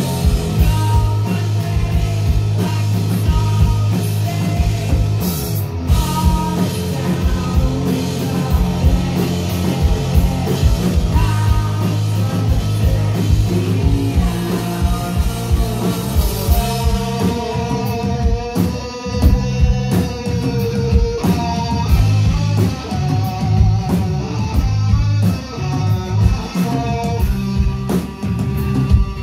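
Live rock band playing a song: electric guitar, bass guitar and drum kit, with a woman singing.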